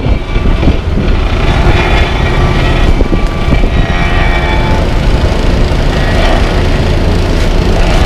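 Freightliner dump truck's diesel engine running as the truck reverses slowly up to an asphalt paver, under a heavy, uneven rumble of wind buffeting the microphone.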